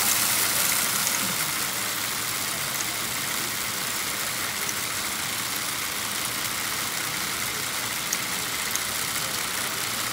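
Steady whirring of a Lego rotary dumper's motors and gearing as the mechanism runs, a little louder for the first second or so, with two small clicks near the end.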